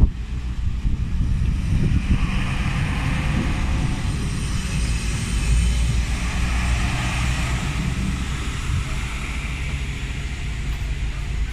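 SA134 diesel railcar passing close by over a level crossing: its engine running under a rushing rumble of wheels on the rails, which swells as the train goes by and eases off near the end.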